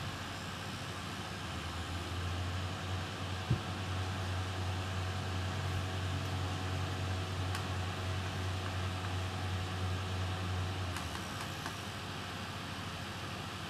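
Steady low hum of a running fan over a light hiss, stronger from about two seconds in until about eleven seconds in, with one sharp click about three and a half seconds in.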